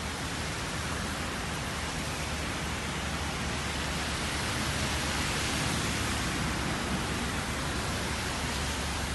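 Steady hiss of rain with cars driving past on the wet road, the hiss swelling a little around the middle, over a low steady rumble.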